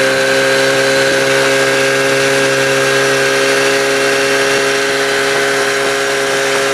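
Boat's outboard motor running at a steady speed, a constant even hum with a whine, over a rushing hiss.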